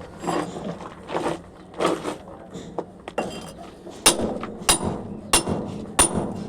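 Sharp clinking strikes with a high ring, evenly spaced at about one and a half a second, starting about four seconds in, with voices before them.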